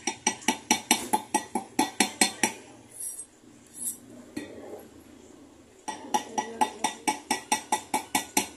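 Steel hammer tapping a gold ring on a steel ring mandrel, quick ringing metallic strikes about five a second. They stop for about three seconds midway, then resume.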